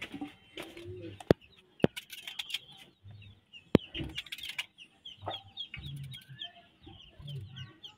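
Chickens clucking in a farmyard, low short clucks every second or so under a continual run of quick high chirps. A few sharp clicks come about a second in, just before two seconds in, and near four seconds in.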